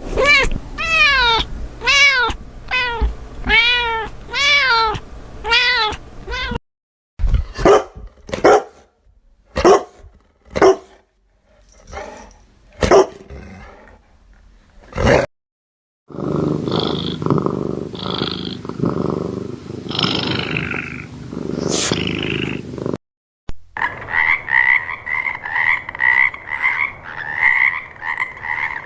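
A run of separate animal sound clips. It opens with about eight rising-and-falling meows from a cat. These are followed by a string of short sharp barks, then several seconds of growling and roaring. From about 23 seconds in, a frog croaks in a fast, rapid rhythm.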